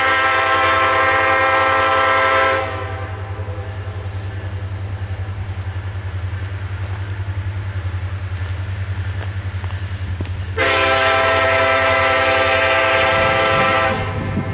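Norfolk Southern freight locomotive's air horn sounds two long blasts about eight seconds apart, over a steady low drone from the diesel engines of the approaching train.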